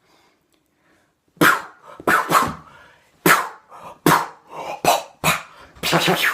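Dog barking repeatedly: about ten short, sharp barks at uneven spacing, starting about a second and a half in.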